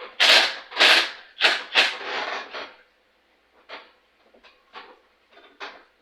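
Hand tools working on a small engine: four sharp rasping strokes in the first two seconds, a short scrape, then fainter scattered clicks and knocks.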